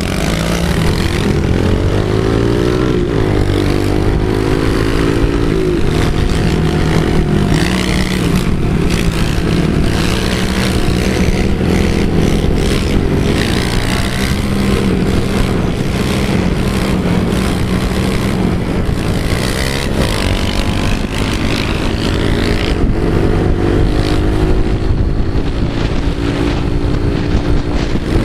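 Several small pit-bike engines running and revving, their pitch rising and falling as the riders throttle up and ease off.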